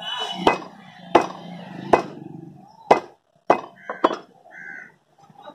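Butcher's cleaver chopping pork on a wooden chopping block: about seven sharp strikes, roughly one a second, with two quick ones close together about four seconds in.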